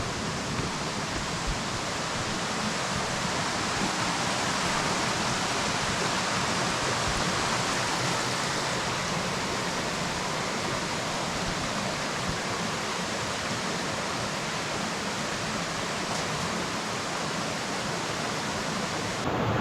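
Waterfall: a steady rush of falling water that changes abruptly just before the end.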